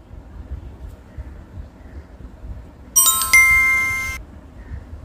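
Short bright chime sound effect: two ringing strikes about a third of a second apart, cut off abruptly about a second later, after a few seconds of faint low background noise.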